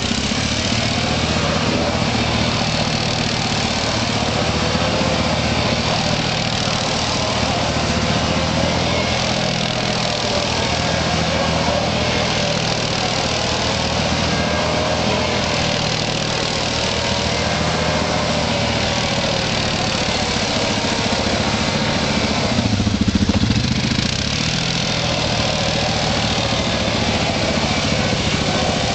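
Yamaha ATV engine running steadily as the quad drifts in circles on ice, its pitch gently rising and falling with the throttle. About three-quarters of the way through it briefly gets louder.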